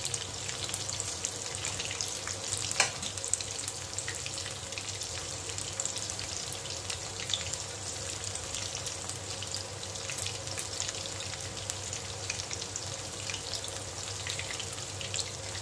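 Marinated chicken pakoda pieces deep-frying in hot oil in a kadai: a steady crackling sizzle, with one sharp click about three seconds in.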